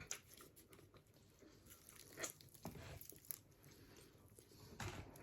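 Faint, scattered crunches and clicks of food being handled at the table, with a few sharper snaps about two to three seconds in and again near the end.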